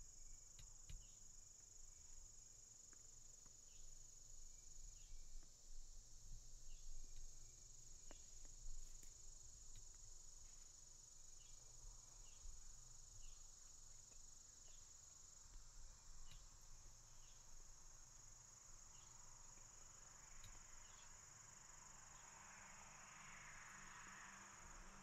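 Faint, steady high-pitched trilling of crickets, with a few short chirps scattered through it.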